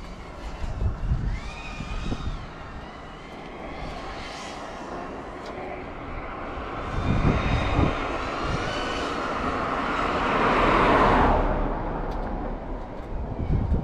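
FPV quadcopter's electric motors and props whining, the pitch climbing and dropping as the throttle changes. A broad rushing swell builds to its loudest about eleven seconds in, then falls away quickly.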